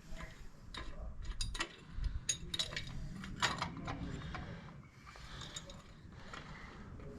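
Irregular metallic clicks and clinks of hand tools and small metal parts being handled, as Allen bolts are undone and a cover plate is taken off a motorcycle engine.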